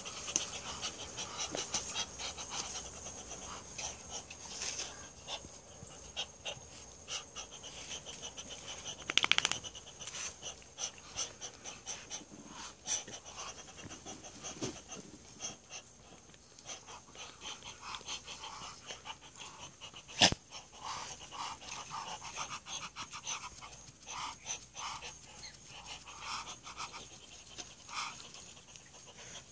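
Quick breathy panting close by, with many small ticks and scuffs. A short buzzing sound comes about nine seconds in, and a sharp knock about twenty seconds in is the loudest sound.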